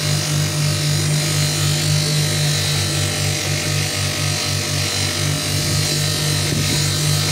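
Power tool running steadily, with an abrasive rubbing against a steel machete blade as it is polished.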